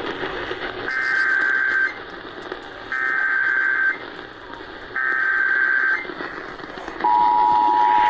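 Emergency Alert System SAME header: three one-second bursts of screeching digital data tones, a second apart. About seven seconds in, the steady two-tone EAS attention signal starts. Together they mark an activation of the alert, here for a severe thunderstorm warning.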